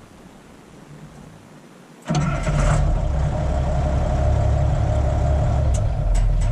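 The 1070 tractor's engine starts about two seconds in and then runs steadily, started so that the newly fitted tachometer cable can be checked.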